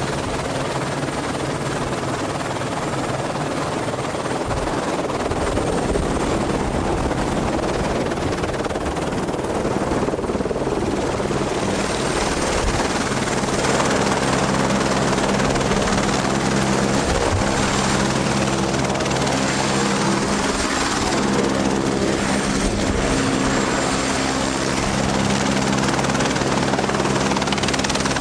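Light single-engine helicopter of the AS350 Écureuil type, its turbine and rotor running steadily. A low engine hum becomes clearer about twelve seconds in.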